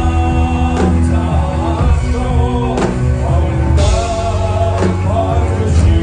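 Live band playing a song: a sung lead voice over accordion, guitars, upright double bass and drum kit, with steady bass notes and sharp drum hits.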